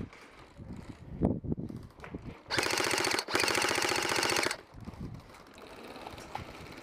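Airsoft electric rifle firing full-auto in two close bursts of rapid, even shots, with a brief gap between them. Softer knocks and rustling come before.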